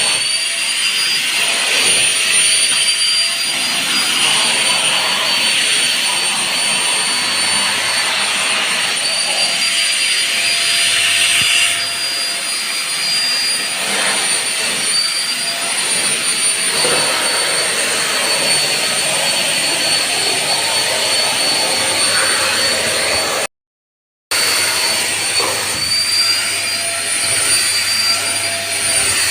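Vacuum cleaner running steadily: an airy rush of suction with a constant high-pitched motor whine. The rush drops a little about twelve seconds in, and the sound breaks off for under a second about two-thirds of the way through.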